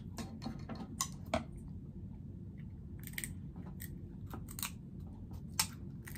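Snow crab leg shell being cut with kitchen scissors and pulled apart by hand: scattered sharp snips and crackles of shell, over a low steady hum.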